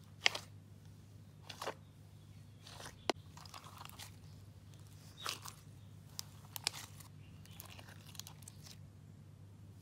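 A hand kneading a big batch of slime coated in gold pigment powder, giving faint, irregular crackles and pops, the sharpest just after the start and about three seconds in, over a faint steady low hum.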